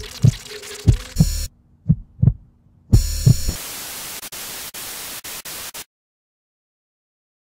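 Heartbeat sound effect in a film soundtrack: pairs of low thumps about once a second over a low hum, with bursts of static hiss. From about three and a half seconds in, a steady hiss with a few clicks takes over, then the sound cuts off suddenly about six seconds in.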